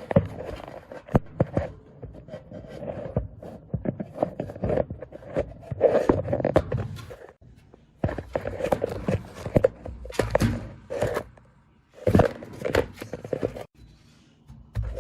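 Irregular clicks, knocks and scraping of metal parts being handled inside a dryer cabinet while the drum belt and idler pulley spring are fitted by hand.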